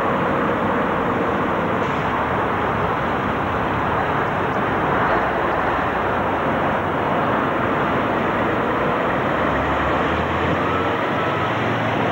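Diesel engine of an articulated lorry running as it pulls away at low speed over steady traffic noise, the low engine rumble growing stronger near the end as the lorry passes close by.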